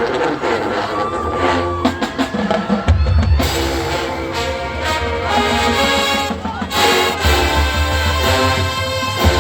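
High school marching band playing: brass over drums and a heavy bass line, the full band coming in harder about three seconds in.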